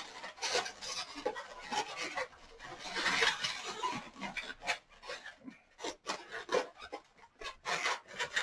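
Latex 260 modelling balloon being handled and tied, the rubber squeaking and rubbing in irregular short strokes as the knot end is wrapped around the pinch-twisted tail.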